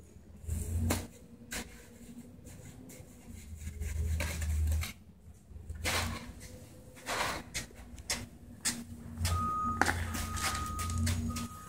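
Damp concrete mix being scooped by hand and with a hand scoop out of a plastic tub and dropped into a steel block mold: scattered short scrapes and soft knocks. A faint high tone comes and goes near the end, over a low hum that rises and falls.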